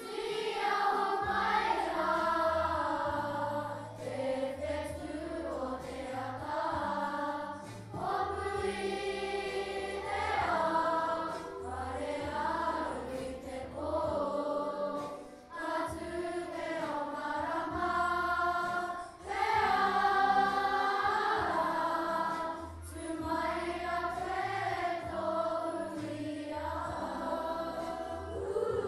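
A group of children singing together in phrases of a few seconds, with short breaks between them, over a low backing.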